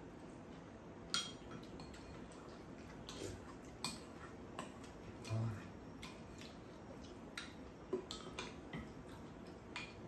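Chopsticks and a metal spoon clicking and scraping against ceramic bowls as two people eat, light irregular clinks a few times a second.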